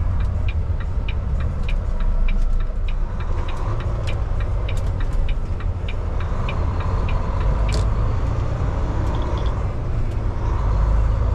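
Steady low rumble of a semi-truck's diesel engine heard inside the cab, with the turn-signal relay clicking about twice a second as the truck turns; the clicking stops about two-thirds of the way through.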